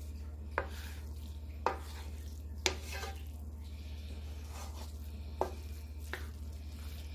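Wooden spatula stirring and turning fried rice in a nonstick frying pan, with about five sharp knocks of the spatula against the pan. A steady low hum runs underneath.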